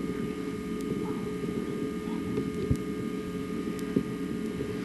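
Steady low hum of an old home-video camcorder recording, with a couple of soft knocks partway through.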